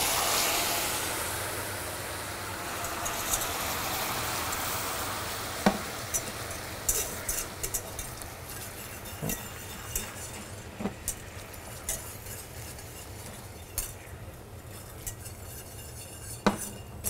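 Hot caramel in a stainless saucepan spatters and hisses as water is poured in, the sizzle starting loud and fading over several seconds. A wire whisk then stirs the thinned caramel, with scattered light clicks against the pan.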